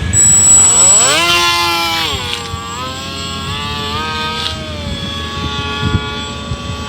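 RC airplane motor and propeller running up: a buzzing whine that climbs sharply in pitch about a second in as the throttle opens, drops back a little past two seconds, then holds steady with small wavers.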